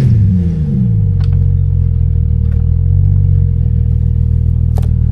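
Off-road 4x4's engine coming down off the revs in the first second, then running steadily at low revs. A faint tick about a second in and a sharp click near the end.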